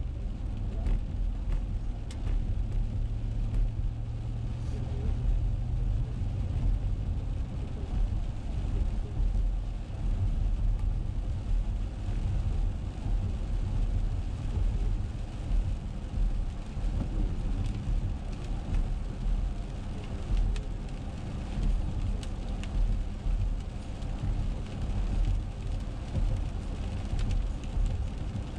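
Car driving on a wet road, heard from inside the cabin: a steady low rumble of engine and tyres with tyre hiss, and scattered light ticks of raindrops hitting the windshield.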